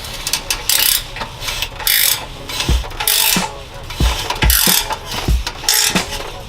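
Ratchet wrench clicking in repeated strokes while the header bolts are undone, over a music beat with a low kick drum.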